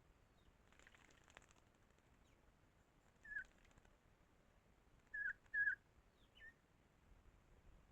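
Short chirping bird calls: one about three seconds in, a close pair a couple of seconds later, then a fainter one, with a soft brief rustle about a second in.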